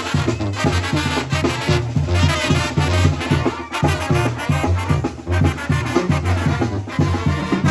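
Mexican banda brass band playing a dance tune live: trumpets and trombones over a low tuba bass line pumping on the beat.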